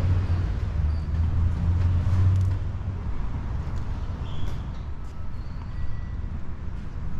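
City street traffic on an avenue. A passing motor vehicle's engine makes a low rumble that is loudest for the first two and a half seconds and then eases off under the steady traffic noise.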